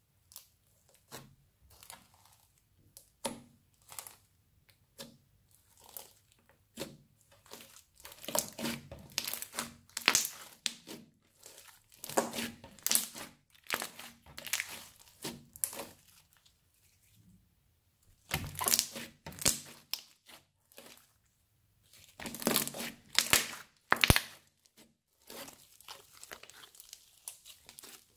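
Crunchy slime being squeezed and pressed, crackling and popping. It starts as single crackles about a second apart, then comes in dense runs of a few seconds with short pauses between.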